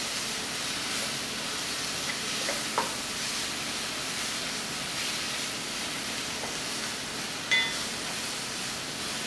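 Onions, tomatoes and ground spices frying in a nonstick pot with a steady sizzle, stirred and scraped with a wooden spoon. A short scrape about three seconds in, and near the end a sharp knock with a brief ring.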